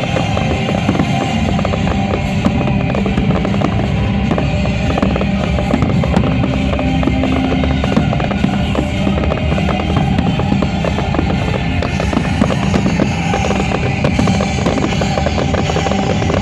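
Fireworks popping and crackling in a dense, continuous stream over music.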